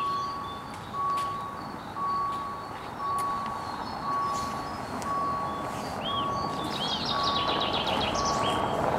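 Railway level-crossing warning bell sounding as a steady single-pitched beep about once a second while the red lights flash: the crossing is closing for an approaching train.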